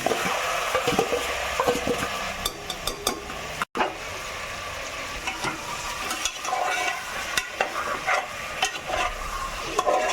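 Marinated chicken pieces sizzling in melted butter in a pan while a spatula stirs them, scraping and clicking against the pan. The sound breaks off for an instant a little under four seconds in.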